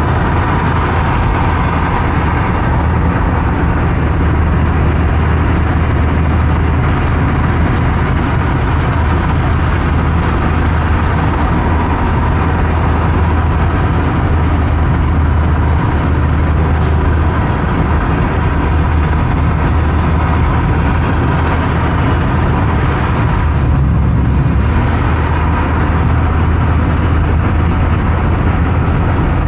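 Car driving on a highway: a steady low engine hum under continuous tyre and road noise, with a brief change in tone about 24 seconds in, where the hiss dips and the low rumble swells.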